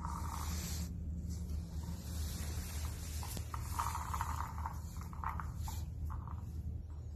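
Puppy nosing and pushing a rubber treat toy across a tile floor: a few short scuffing, scraping noises in the second half, over a steady low hum.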